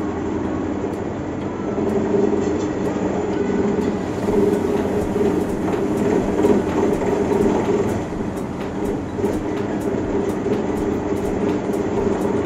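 Tractor engine driving a PTO-powered forage mill for grinding dried alfalfa, running up to speed and then turning over with a steady hum. It grows louder over the first couple of seconds, then holds, with light ticking through it.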